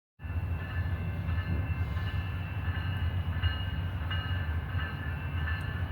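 Amtrak Wolverine passenger train's diesel locomotive running with a steady low hum as the train departs, with faint high steady tones over it.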